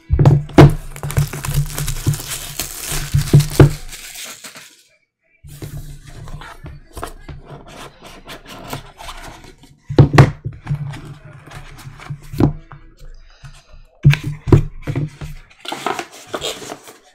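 Plastic shrink-wrap crinkling and tearing off a trading-card box for about four seconds. After a short pause come scattered clicks and knocks as the box is handled and a card in a hard plastic holder is set down on the mat.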